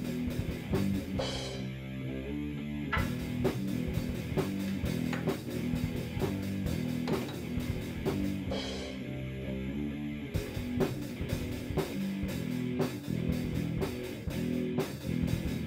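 Background rock music with guitar and drums at a steady beat.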